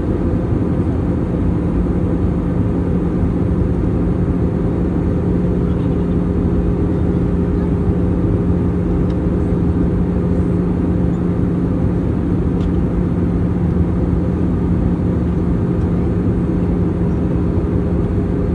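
Airbus A320 cabin noise in flight on approach: a steady drone of the engines and rushing airflow, with a constant low hum running through it.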